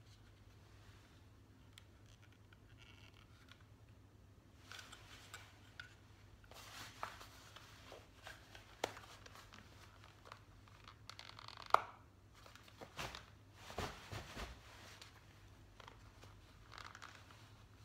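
Handling noise from a clip-on pistol holster being worked onto a trouser waistband: fabric rustling and scraping with scattered clicks of the clip, the sharpest click about two-thirds of the way through.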